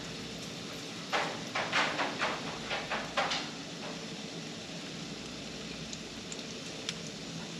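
A fresh lemon being worked by hand: about eight short, crackly, juicy noises in quick succession between one and three and a half seconds in, then a few faint ticks, over a steady background hum.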